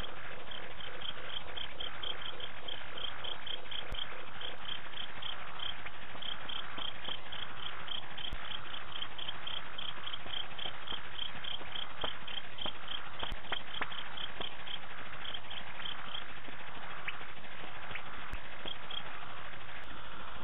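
Night insect chorus, with a cricket giving a steady run of short, high chirps about four a second that stops about sixteen seconds in; a steady hum of other insects goes on beneath.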